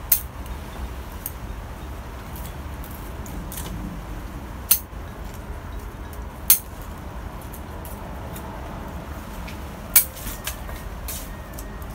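Bonsai scissors snipping beech twigs: four sharp snips, near the start, about five and six and a half seconds in, and at ten seconds, with fainter clicks of the blades between, over a steady low rumble.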